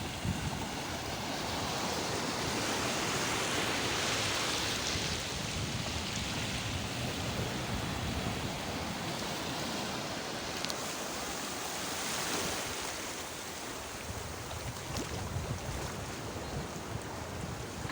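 Sea waves washing onto the shore in a steady hiss, swelling about three seconds in and again around twelve seconds in.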